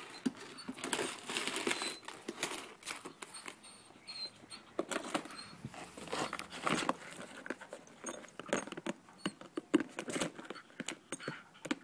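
A Jack Russell terrier nosing, pawing and mouthing a clear plastic lidded tub on concrete. The plastic knocks, clicks and scrapes in an irregular patter of small hits.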